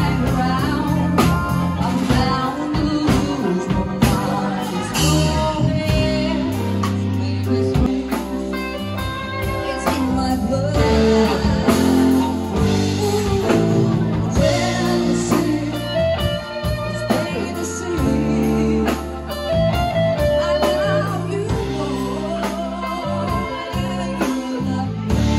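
Background music: a song with singing over guitar and bass, with a steady beat.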